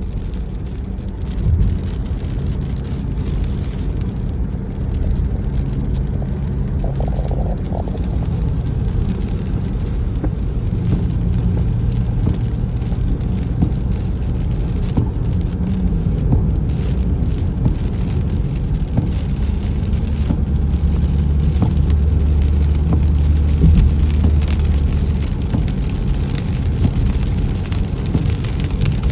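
Rain falling on a car while the car's engine runs with a steady low hum, its pitch shifting now and then, under a constant patter of rain with scattered drop ticks.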